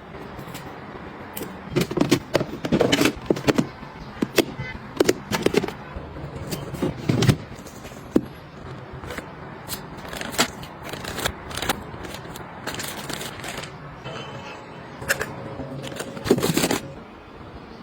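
Small household items being handled and set down: an irregular run of clicks, taps and knocks with brief rustling and scraping, busiest in the first half and again near the end.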